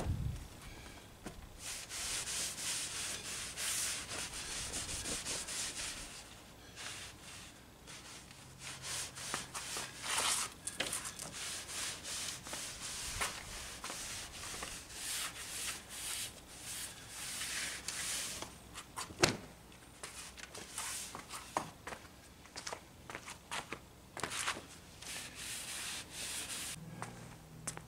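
Cloth rag rubbed back and forth along a bench's stripped wooden slats, wiping them down, in runs of irregular swishing strokes. One sharp tap comes about nineteen seconds in.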